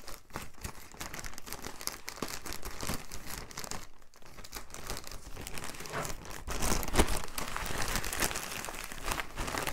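A parcel being cut open with scissors and its packaging crinkled and torn: a continuous run of rustles and crackles, loudest about seven seconds in.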